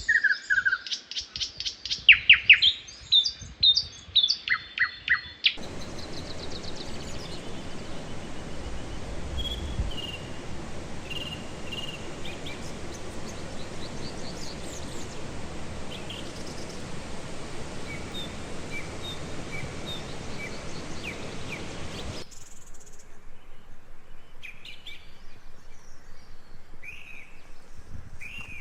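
Songbirds singing: loud, rapid chirps and trills in the first five seconds, then fainter calls over a steady rushing hiss that cuts off abruptly about 22 seconds in, leaving scattered chirps.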